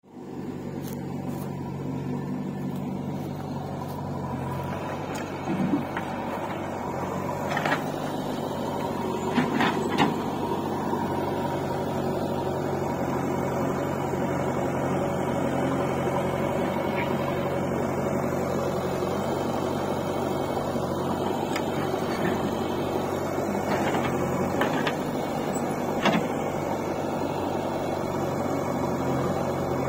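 Diesel engines of a backhoe loader and farm tractor running steadily at work, with a few sharp knocks and clanks, several of them in the first third and a few more near the end.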